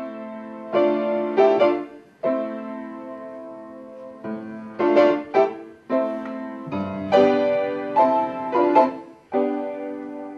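Solo piano playing a slow classical-style piece: notes and chords struck in short phrases, each ringing out and fading, with deeper bass notes joining about halfway through.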